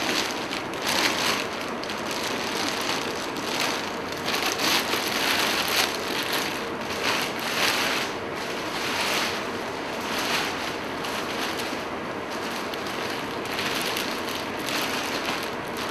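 Clear plastic sterile drape rustling and crinkling in irregular bursts as it is handled and drawn back along a robotic surgical arm.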